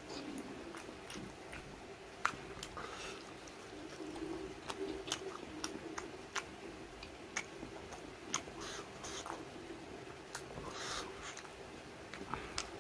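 A person chewing a mouthful of rice and curry, with scattered sharp, wet mouth clicks and smacks.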